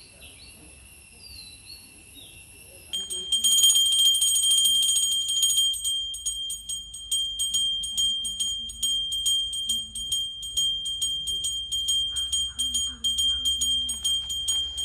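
A brass puja hand bell rung continuously in rapid, even strokes, starting suddenly about three seconds in; before that, only faint outdoor background.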